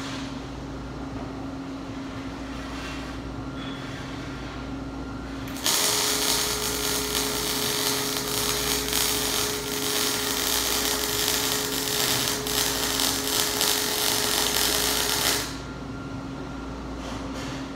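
Wire-feed welder laying a bead on a steel axle housing: a loud, steady crackling arc with a constant whine under it, starting about six seconds in and stopping about ten seconds later. Before and after the weld there is only a low steady hum.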